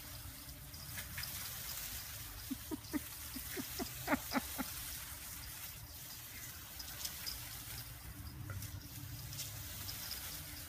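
Garden hose spraying water across a lawn, with insects chirping steadily. About two seconds in comes a quick run of a dozen or so short, high yips from a small dog chasing the spray.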